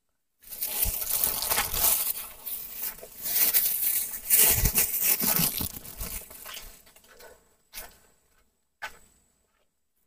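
Dry leaves and undergrowth crunching and rustling underfoot, as someone walks through forest litter. It starts about half a second in and fades out after about seven seconds.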